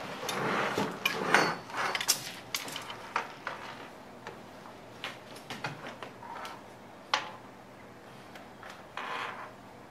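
Handling sounds of cut craft-paper slices on a table: rustling and sliding paper with scattered taps and clicks, busiest in the first few seconds, then sparser, with a short rustle near the end.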